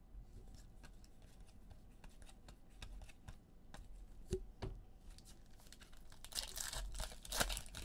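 Scattered light clicks and taps of trading cards being handled, then, from about six seconds in, the crackling and tearing of a foil trading-card pack wrapper being ripped open.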